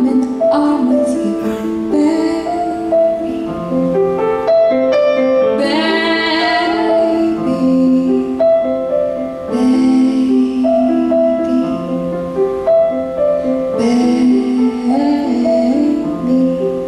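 A woman singing while she plays a grand piano, performed live.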